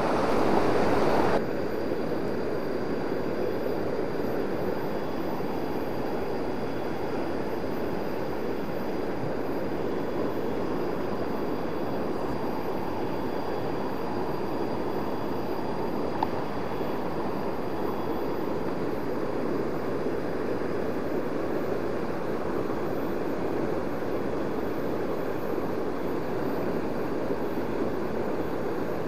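Steady rushing of a swollen, fast-running river in flood.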